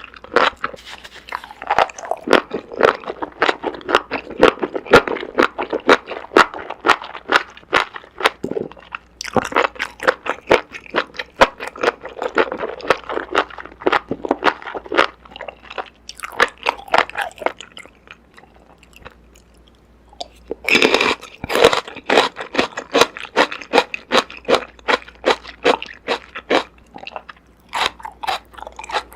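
Close-miked eating sounds: rapid, crisp crunching and chewing of food, with a quiet break of about two seconds around two-thirds of the way through.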